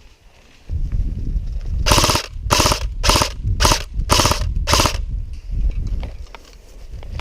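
Airsoft electric gun firing six short full-auto bursts in quick succession, about two bursts a second, each a rapid rattle of shots.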